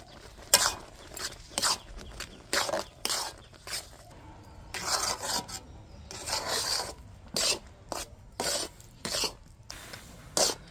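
Spatula scraping around a pan in irregular strokes, roughly one every half second to a second, stirring semolina halwa.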